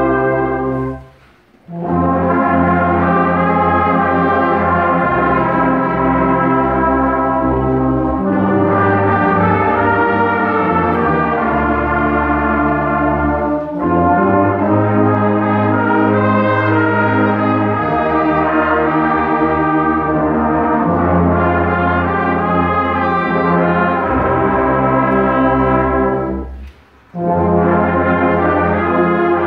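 Brass band playing a slow chorale-like piece in sustained full chords, with a short rest about a second in and another near the end, picked up on a phone's microphone.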